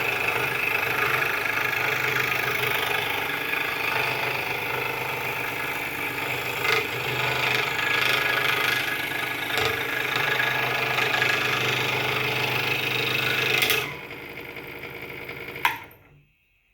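Delta scroll saw running at full speed, a steady mechanical hum and chatter from the blade drive. About fourteen seconds in it is switched off and the sound drops away, with a single click shortly before it falls silent.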